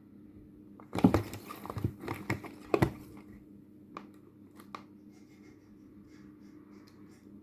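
Bursts of rustling and crinkling with sharp knocks, starting about a second in and lasting about two seconds, then two light clicks, over a steady low hum.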